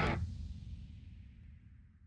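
The end of the outro music: the full band sound cuts off just after the start, leaving a low tail that fades away.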